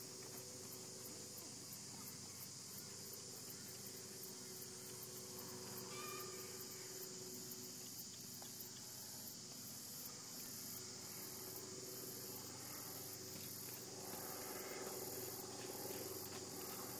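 Steady, high-pitched chorus of insects, with a faint regular pulsing on top.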